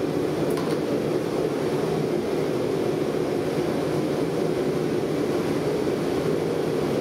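Forced-air gas forge burner and its high-pressure blower running, a steady, even rushing noise.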